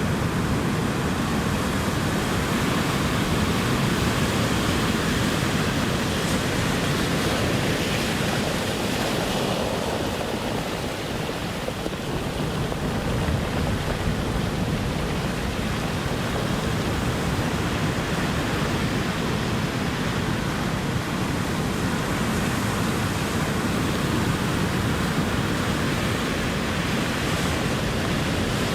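Ocean surf washing ashore in a continuous, even rush, swelling and easing a little with the breaking waves.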